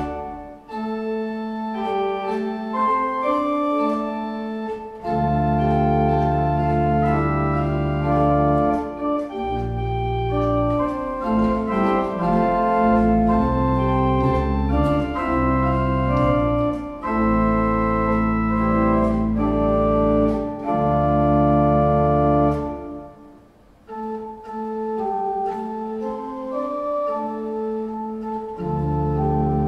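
Church organ playing a slow piece of held chords, with deep bass notes that come and go, and a short pause about three-quarters of the way through.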